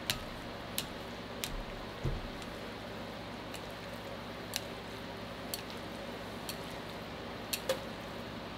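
Wooden chopsticks stirring oily instant yakisoba noodles in a ceramic bowl, with about nine light clicks, scattered a second or so apart, as the chopsticks tap the bowl. A steady low hum sits underneath.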